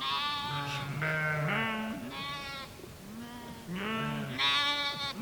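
A flock of sheep bleating: several animals calling one after another and over one another at different pitches, some calls high and some low.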